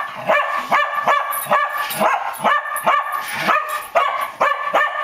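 Dog barking rapidly and without pause at a toy car, about three sharp barks a second in an excited, play-attack frenzy.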